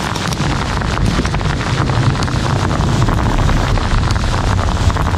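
Hailstones pelting down hard, a dense rattle of countless small impacts, with strong wind buffeting the microphone in a heavy low rumble.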